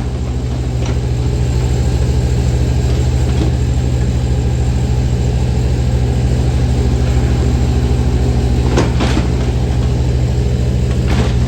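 A large engine running steadily at a constant idle close by, loud and even, with a couple of short knocks near the end.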